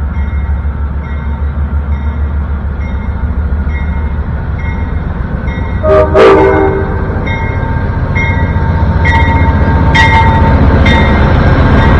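Amtrak P42DC diesel locomotive running with a steady low rumble and a faint regular ticking. A short horn blast sounds about halfway through, and after it the train grows steadily louder as it comes closer.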